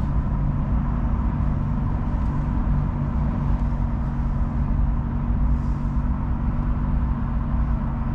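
Steady engine and road noise inside the cabin of a Toyota Sienna minivan driving in traffic: a constant low rumble with a faint steady hum, no distinct events.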